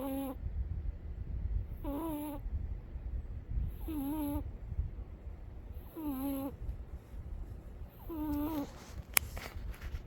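Sleeping cat snoring: a short, high, wavering whistle on each breath, about every two seconds, over a low steady rumble. A single sharp click near the end.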